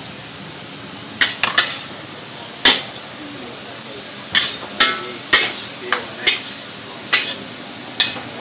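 Mee kantaing (flat rice noodles) stir-frying in a wok with a steady sizzle. A metal spatula clanks and scrapes against the pan about ten times at irregular intervals, a few strikes ringing briefly.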